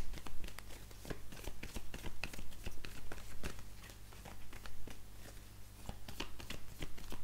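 A deck of oracle cards being shuffled by hand: a continual, uneven patter of quick soft card clicks and slaps.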